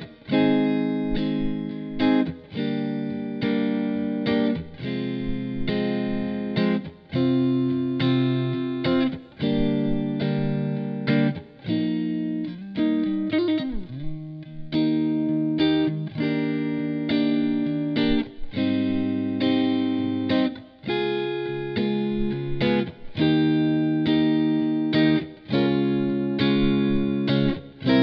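Fender Stratocaster electric guitar played through a Marshall amp head and cabinet, strumming chords that each ring for a second or two with short breaks between them. There is a sliding bend in pitch about halfway through.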